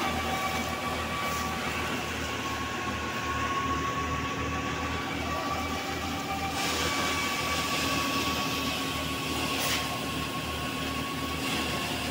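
Manku paddy thresher running steadily while rice straw is fed into it. It makes a continuous whine over a low rhythmic pulsing about three times a second, with one brief sharp click near the end.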